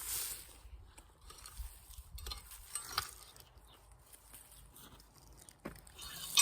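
Faint scattered crunches, scrapes and clicks of soil and dry potato foliage being handled while potatoes are dug out by hand, with a sharper click about three seconds in.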